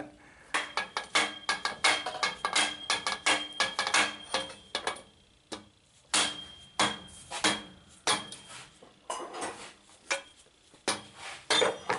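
Hammer blows on a steel pipe and the pipe bender's forming die stuck to it, in a quick, uneven series of sharp metallic clanks that ring briefly, with a couple of short pauses. The blows are knocking the stuck die free of the freshly bent pipe.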